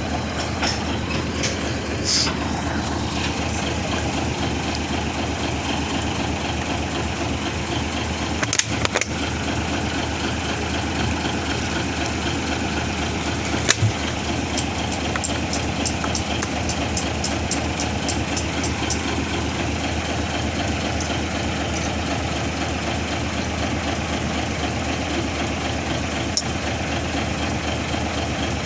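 Mitsubishi Fuso 6M70 inline-six diesel engine idling steadily. A few sharp knocks sound about a third and halfway in, and a quick run of high ticks follows for several seconds.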